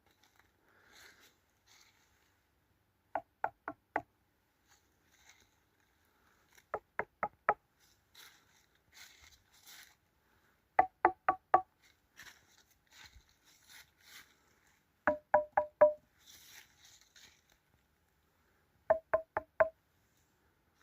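Pieces of wood of different tree species struck in turn, four knocks to each piece, giving five sets of short, ringing wooden knocks, each set at its own pitch; the different tones come from the different build of each species' wood. Faint rustling between the sets.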